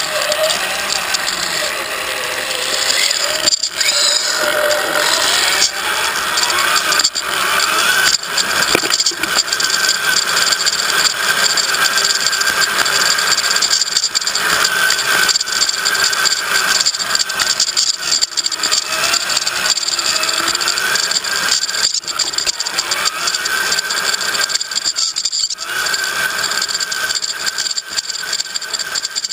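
Onboard sound of a radio-controlled crawler driving over rough dirt: the motor and gears whine, rising and falling in pitch with the throttle, over a constant rattle of the chassis and camera mount.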